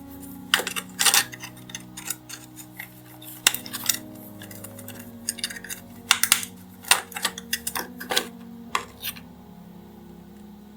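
Irregular sharp clicks and light clatter of small diecast metal parts and hand tools being handled and set down on a work surface, over soft background music with held chords.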